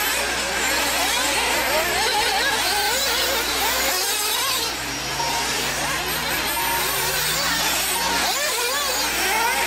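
Several 1/8-scale 4x4 nitro RC buggies racing, their small glow engines overlapping in a high-pitched, constantly rising and falling whine as they rev down the straights and drop off for the corners.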